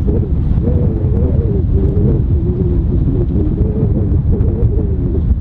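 Wind buffeting the microphone: a loud, steady low rumble, with a faint wavering tone running through it.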